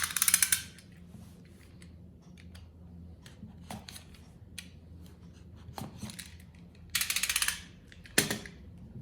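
Phone retail box packaging being cut or torn open by hand: two short crackly rasps, one at the start and one about seven seconds in, then a sharp click and small handling clicks.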